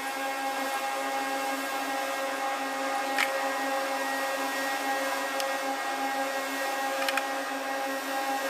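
A steady electric motor hum at a fixed pitch, with a few light metal clicks from a swaging tool being turned on copper pipe.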